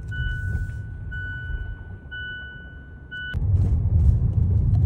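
A car's warning chime beeps about once a second over a low rumble. A little over three seconds in it stops with a click, and the car's low rumble comes up louder.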